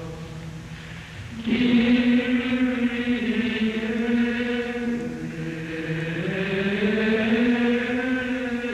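A choir of men's voices singing a slow chant: long held notes moving in steps, swelling suddenly about a second and a half in.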